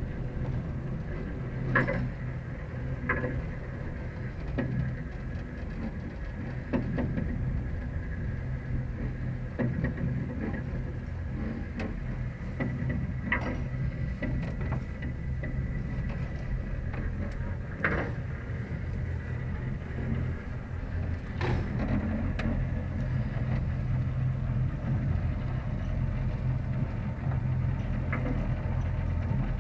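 Open cable-car gondola running along its cable: a steady low rumble and hum, with a few sharp clicks and knocks from the car's hanger and cable gear.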